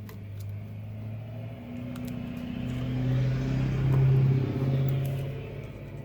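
A motor vehicle's engine hum swelling to its loudest about four seconds in, then fading as it passes.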